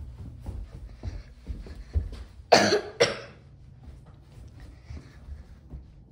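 A person coughing twice, about half a second apart, a couple of seconds in. Underneath are the low rumble and soft knocks of a handheld phone being carried while walking.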